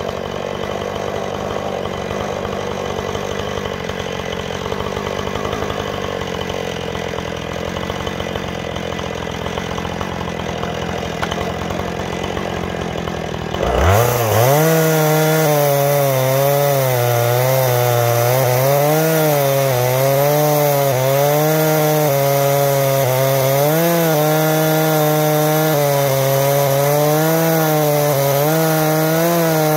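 Husqvarna 460 Rancher two-stroke chainsaw on an Alaskan chainsaw mill. It runs steadily at lower speed, then about halfway through is opened up to full throttle with a quick rise in pitch. It then works under load as it rips lengthwise through a cedar log, its pitch wavering up and down as the cut bogs and recovers.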